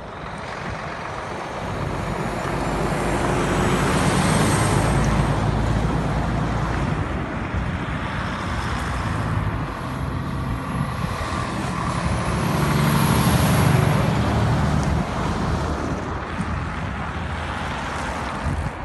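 Heavy diesel semi-trucks hauling oversize building modules drive past one after another, with engine and tyre noise. It swells loudest about four seconds in and again around thirteen seconds.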